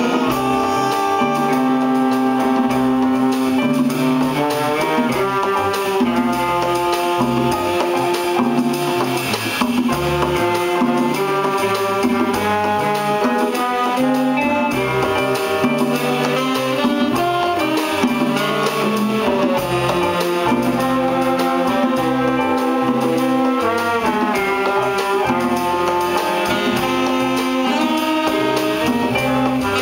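Jazz big band playing live: a saxophone section and brass with trumpets and trombones over a drum kit and bass.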